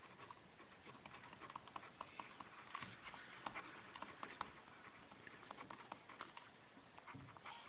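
Near silence with faint, scattered small clicks and light rustling, irregular throughout.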